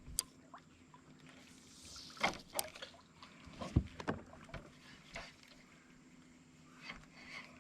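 Light knocks and clicks from a small fishing skiff and its tackle, with a few sharper ones around the middle, over a faint steady hum.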